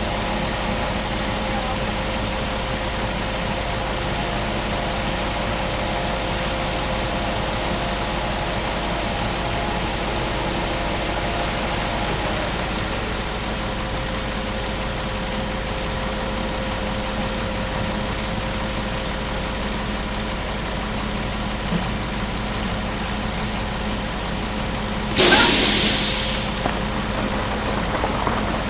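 Concrete mixer truck engine idling steadily. Near the end, one sudden loud hiss that fades over about a second and a half.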